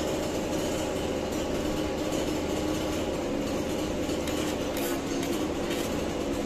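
Metal skimmer scraping and turning steaming plov rice in a cast-iron kazan, over a continuous rumbling noise.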